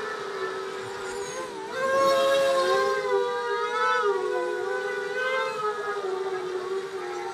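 Brushless ZMR 1804-2400 motors and propellers of a 240-size carbon FPV racing quadcopter whining under throttle, as heard from the quad's own onboard camera. Several close pitches from the four motors waver with the pilot's throttle corrections: a brief drop about a second and a half in, then a rise and a louder push about two seconds in.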